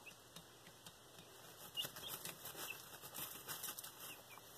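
Young chicks pecking at a feeder and scratching and shuffling in wood shavings: faint rustling and ticking that grows busier about two seconds in, with a few brief soft peeps.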